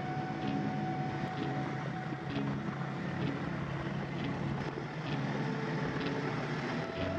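Snowmobile engine running steadily under way through snow, heard from the riding sled.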